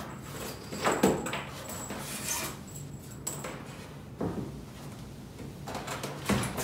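Unpacking handling: a few short knocks and scrapes as metal mug-press heating elements are set down on a table and a hand rummages in a styrofoam packing box. The sharpest knocks come about a second in and near the end.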